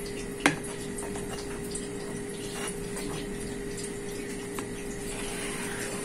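Large metal spoon stirring a thick, thickening pumpkin pudding in a stainless steel pot, with soft wet scraping and one sharp knock of spoon on pot about half a second in, over a steady hum.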